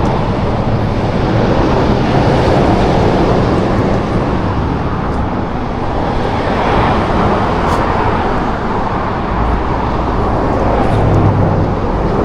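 Steady traffic noise from cars passing close by on a busy road, swelling and easing as vehicles go past.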